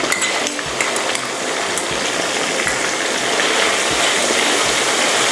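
Chicken pieces deep-frying in very hot oil in a wok, a steady loud sizzle with garlic and black pepper just added. A few light clicks of a metal spoon against a metal bowl come in the first two seconds.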